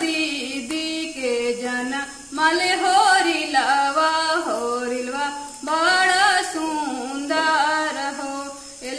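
A woman singing a Magahi sohar, a traditional childbirth folk song, solo in phrases whose pitch bends and turns, with short pauses between them.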